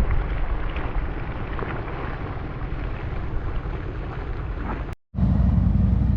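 Steady rushing noise with wind buffeting the microphone. About five seconds in it breaks off sharply, and a steadier low rumble follows.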